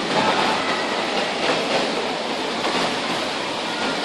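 Kayak paddles splashing and churning pool water, a steady wash of noise echoing in an indoor pool hall.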